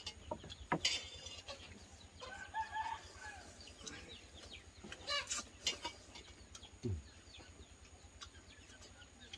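A rooster crows once, about two seconds in: a single held call lasting about a second. Sharp clinks of spoons on plates and bowls from people eating come and go around it, with a short low falling sound near the end.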